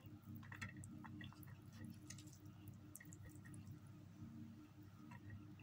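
Faint sounds of someone eating instant noodles: chewing and small wet clicks, scattered throughout, over a low steady hum.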